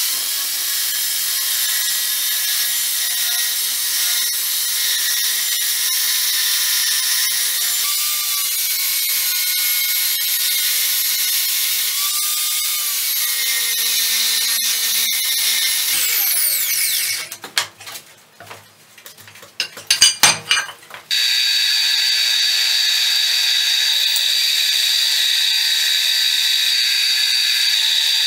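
Electric angle grinder with a cut-off disc cutting through a steel plate, running steadily under load with its pitch dipping briefly as it bites, then spinning down at about 17 seconds. A few knocks follow, and from about 21 seconds a drill press spindle runs with a steady high whine, drilling into a steel block.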